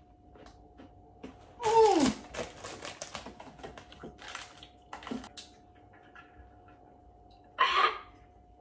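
A woman's disgusted groan, falling in pitch, about two seconds in as she reacts to the taste of a Vegemite and cheese cracker, followed by a run of crinkling clicks from a snack packet held to her face and a short harsh burst of breath near the end.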